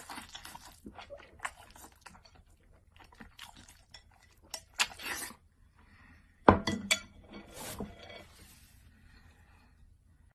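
Noodles being eaten with chopsticks from a ceramic bowl: chopsticks clicking against the bowl, with slurping and chewing. A sharp clunk comes about six and a half seconds in, the loudest sound.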